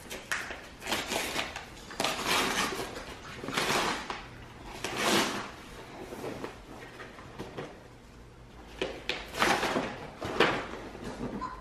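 Brown kraft wrapping paper being torn and rustled off a gift box in a run of short bursts, with a quieter pause in the middle before a final few tears.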